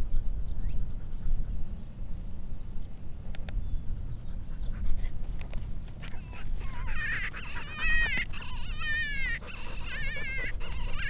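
Coyotes yipping and howling in high, wavering calls that start about halfway through, over a low steady background rush.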